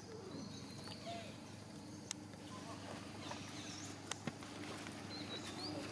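Faint outdoor ambience: short high chirps and squeaks now and then, a few sharp clicks about two and four seconds in, and a steady low hum underneath.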